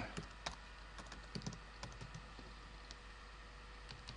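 Typing on a computer keyboard: faint, irregular key clicks that are frequent for about the first two seconds, then thin out to an occasional click.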